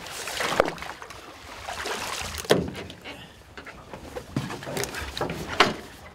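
Water splashing and several sharp knocks as a gaffed halibut is hauled out of the sea and over the side of the boat.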